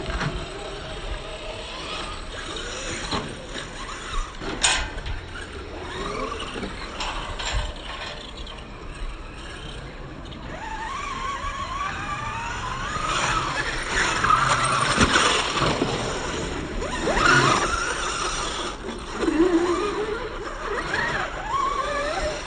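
Electric RC cars running, their brushless motors whining and rising and falling in pitch as they accelerate and brake, busier and louder in the second half. A sharp knock sounds about four and a half seconds in.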